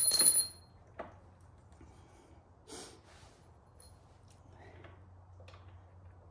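Metal parts of a motorcycle footpeg mount clinking as the pivot pin is worked into the bracket: a sharp metallic clink that rings briefly at the start, a single click about a second in, then a short breath and a few faint small clicks.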